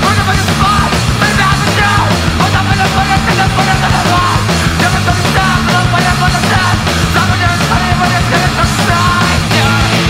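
Loud rock music: a singing voice over a driving, steady drum beat.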